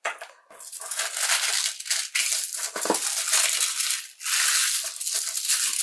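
Tissue paper crinkling as hands fold and wrap it around a small package: a dense, continuous crackle, briefly pausing about four seconds in.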